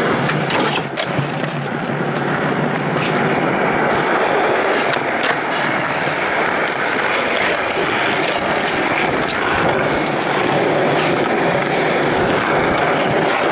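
Skateboard wheels rolling over rough asphalt, a loud continuous gritty roar, with a few sharp clacks of the board scattered through it.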